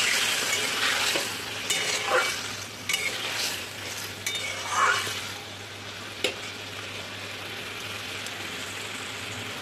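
Spatula stirring and scraping taro and potato curry in a kadai over a steady sizzle from the freshly watered curry. The stirring strokes stop about six seconds in, leaving only the low sizzle of the curry simmering.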